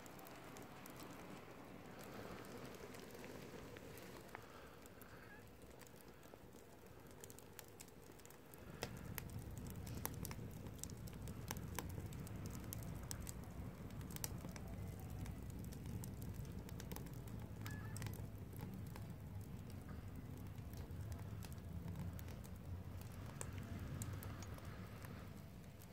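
Wood fire crackling in a steel fire barrel, with scattered sharp pops. A low rumble comes in about nine seconds in and stays.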